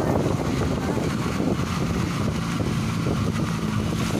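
A VAZ-21099 car running on the move: steady engine note with continuous road and wind noise.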